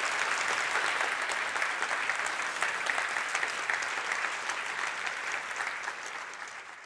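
Audience applauding: dense, steady clapping from many hands that dies down slightly near the end.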